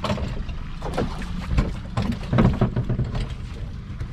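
Boat motor running steadily at low speed, with frequent short splashes and knocks of water against the hull.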